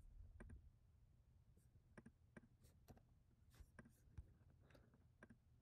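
Near silence with about a dozen faint, scattered clicks from someone working a computer.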